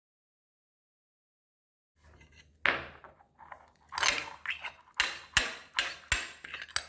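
Homemade slime being handled: a run of sharp, wet clicks and squelches, about two a second, starting after two seconds of silence.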